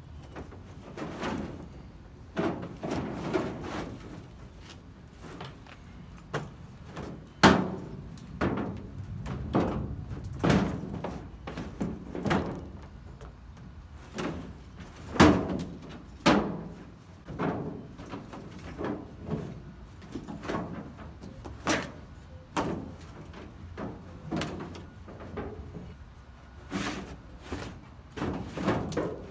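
Plastic drop-in bed liner being pried up and pulled out of a pickup bed: irregular knocks, thuds and scraping of the stiff plastic against the bed, with the loudest bangs about 7 and 15 seconds in.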